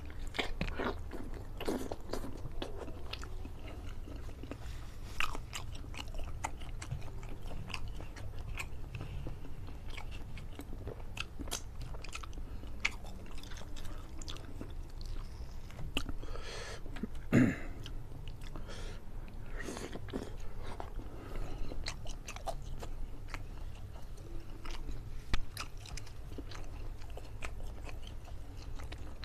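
A man biting and chewing curry chicken: steady chewing with frequent sharp clicks, and three louder bites spread through.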